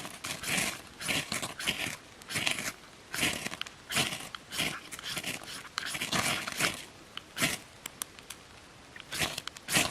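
A knife scraping along a ferro rod in repeated short strokes, about two a second, shaving ferrocerium onto a feather stick as a tinder bed before striking sparks; the strokes pause briefly near the end and then resume.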